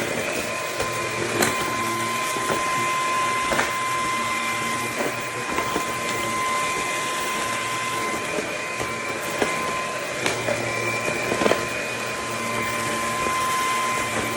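Bissell PowerClean FurGuard cordless stick vacuum running steadily, with a constant high motor whine and scattered short clicks.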